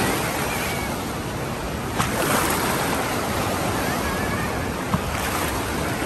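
Artificial waves from an indoor wave pool's wave machine breaking and rushing through the shallows as a steady wash of churning water.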